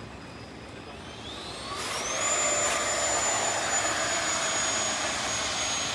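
Radio-controlled model F-15 jet's engine spooling up to full power for takeoff. A whine rises in pitch starting about a second in, then holds as a loud, steady high whine.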